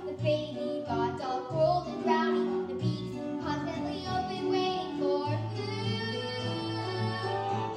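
A song from a stage musical: young voices singing a melody over instrumental backing, ending on a long held note over the last couple of seconds.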